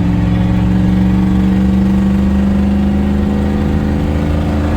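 Ford 6.9-litre IDI V8 diesel engine pulling at full throttle in gear, its pitch climbing slowly as the revs rise toward the governor.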